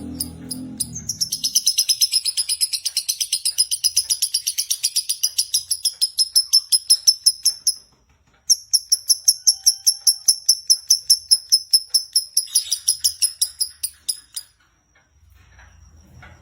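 Lovebird singing in the long, unbroken chattering trill that Indonesian keepers call 'konslet': rapid, evenly repeated high chirps, about six a second. It comes in two long bouts of roughly seven and six seconds with a brief break between. A low hum fades out in the first second and a half.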